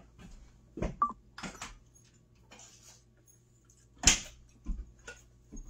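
Scattered light knocks, clicks and footsteps of someone moving about a kitchen, with one sharper knock about four seconds in.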